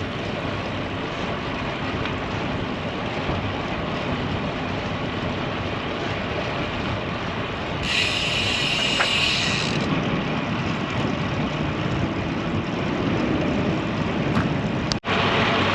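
Wind and road noise on a bicycle-mounted camera while riding a road bike among motor traffic, as a vehicle engine passes. Midway there is a high-pitched hiss for about two seconds, and near the end the sound drops out for an instant.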